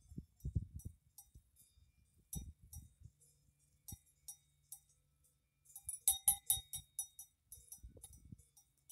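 Bell on a grazing cow clinking irregularly, with a quick run of rings about six seconds in. A few low muffled thumps near the start.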